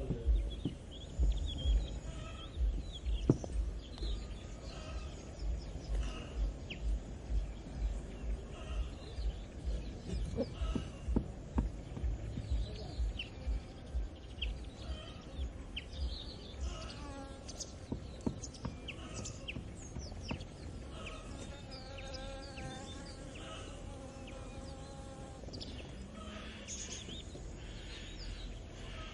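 Farm morning ambience: small birds chirping throughout and an insect buzzing close to the microphone, over low pulsing thumps in the first half. About 22 seconds in, a farm animal gives a drawn-out call lasting a few seconds.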